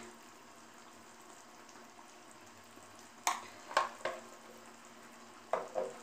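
Onion-tamarind gravy frying faintly in oil in a kadai as a spoonful of salt is tipped in. From about three seconds in, a spoon gives sharp knocks in two pairs.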